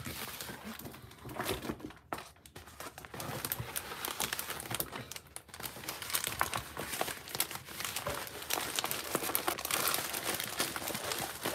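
Clear plastic cover film on a diamond painting canvas crinkling as the canvas is handled, a dense run of small crackles that gets louder about three seconds in.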